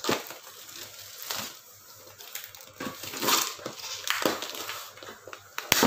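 Plastic shrink wrap crinkling and tearing as it is peeled off a cardboard chess set box, in irregular rustles with a sharp crack near the end.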